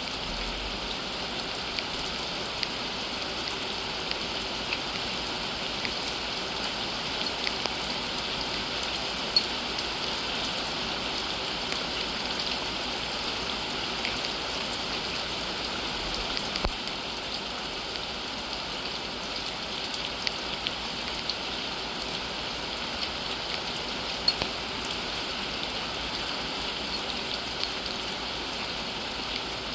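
Steady rain falling, a continuous hiss with scattered individual drops ticking loudly against it.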